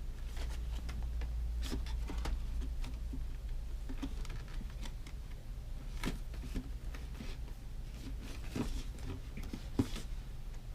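Scattered small clicks, taps and rustles of phone parts and packaging being handled, over a steady low hum.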